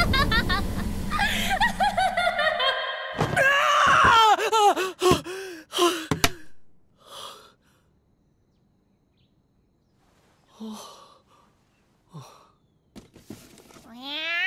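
An animated blast with a character's cry and gasps over it, dying away about six or seven seconds in. After a mostly quiet stretch with a few faint short sounds, a cat meows once near the end.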